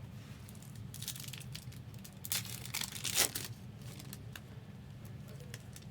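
Trading card pack wrappers crinkling and tearing in short bursts while packs are handled and opened, over a low steady hum.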